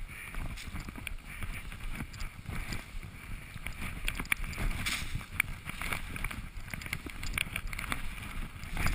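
Skis running through powder snow heard from a GoPro HD Hero camera in its housing: a muffled, uneven rush of skis and wind, broken by frequent small clicks and knocks.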